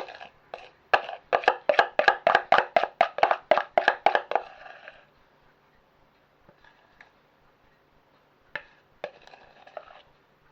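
A spoon tapping quickly and repeatedly against a mug, knocking off cake batter, about four ringing taps a second for some three and a half seconds. A few lighter clinks follow near the end.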